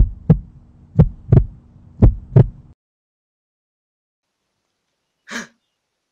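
Heartbeat sound effect: three lub-dub double thumps about a second apart over a low steady hum, cutting off suddenly under three seconds in. A single short, faint burst of noise comes a couple of seconds later.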